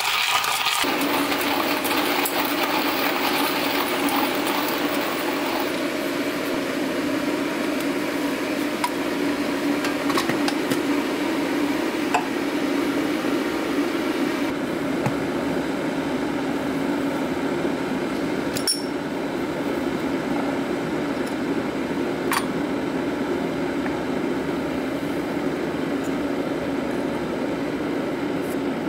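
A hand coffee grinder grinding briefly at the start, then a steady low hum with a few light clinks and taps as brewer parts are handled.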